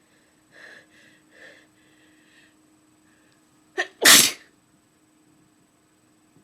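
A woman's sneeze: several short, halting voiced in-breaths build up over about two seconds, then a quick catch of breath and one loud, forceful, spraying sneeze about four seconds in.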